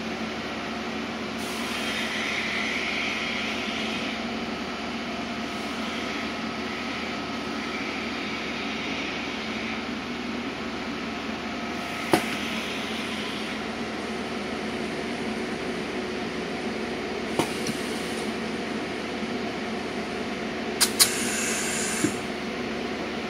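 Steady machine hum with faint hissing at times from an argon spot-welding station, and a few sharp metallic clicks as a workpiece is set into the welding jig. Near the end come two clicks and about a second of sharper hiss.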